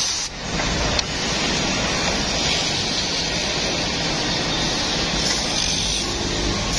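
Woodmaster three-way corner-block drilling machine running, its spindle motors whirring as angled drill bits bore into a triangular wooden block, over a steady rushing noise. A short knock sounds about a second in.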